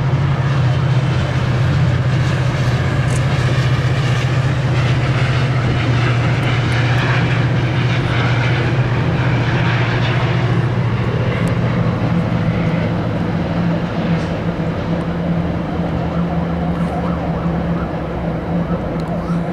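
Loud, steady low engine drone under a rushing noise that swells through the middle and eases slightly near the end.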